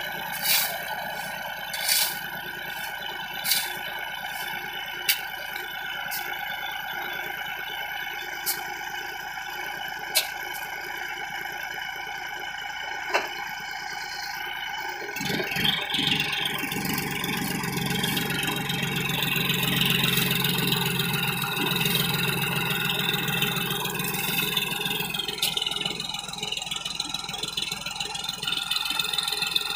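John Deere 5105 tractor's three-cylinder diesel idling, with sharp knocks of a shovel digging sand at the rear wheel every second or two during the first half. About halfway the engine revs up and stays working hard under heavy load as it strains to pull the sand-loaded trolley out of the soft sand.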